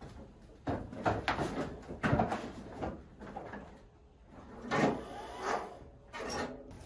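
Irregular knocks and clatter of things being handled in a wooden shed, loudest about one to two seconds in, then a few more thumps as a person climbs onto a riding mower's seat. No engine is running.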